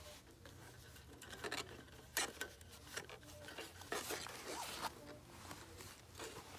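Handling noise from a wooden beehive frame strung with wire: scattered taps, clicks and rustles as the wired frame is gripped and squeezed to tighten its wires, with a sharper tap about two seconds in.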